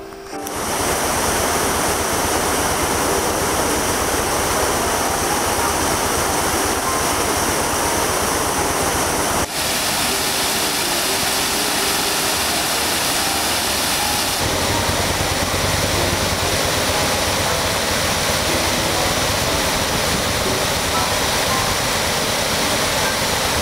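Water rushing over and through a canal lock gate into the lock chamber as the lock fills, a loud steady roar. It drops out briefly about nine seconds in, and a deeper rumble joins from about fourteen seconds.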